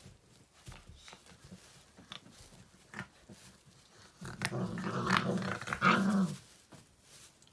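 Central Asian Shepherd (Alabai) puppies play-fighting: light scuffling and rustling in the hay, then about four seconds in a puppy growls loudly for around two seconds.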